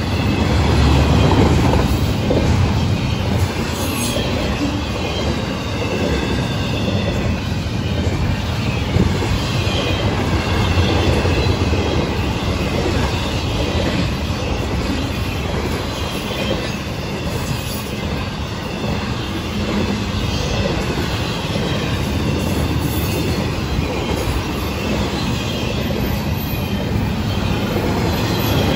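Florida East Coast Railway intermodal freight cars, double-stacked containers and trailers on well cars and flatcars, rolling past at close range: a steady rumble of steel wheels on the rails with a faint wavering wheel squeal.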